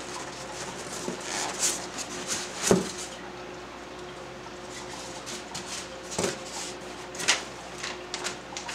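Rustling and handling of packing material inside a cardboard shipping box with a styrofoam cooler liner, with a few sharper knocks and scrapes, the loudest about three seconds in and again about seven seconds in.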